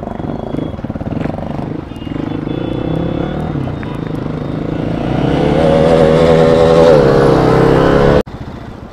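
Motorcycle engines running as the bikes ride off. About five seconds in, one engine grows louder and holds with a wavering pitch, then the sound cuts off abruptly near the end.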